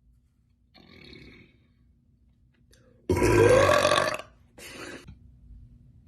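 A woman burps loudly about three seconds in: one long burp of about a second that rises in pitch, followed by a shorter, quieter burp.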